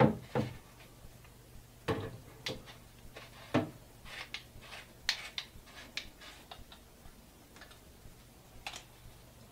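Irregular plastic clicks and knocks as the end cap is screwed back onto the meat-filled tube of a jerky gun, with a few heavier knocks in the first four seconds and then a run of lighter, quicker clicks.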